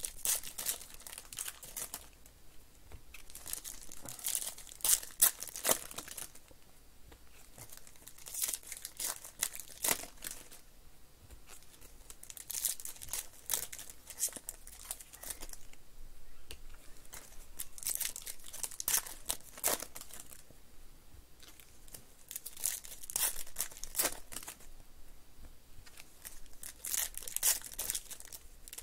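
Foil trading-card pack wrappers being torn open and crumpled by hand, crinkling in bursts every few seconds.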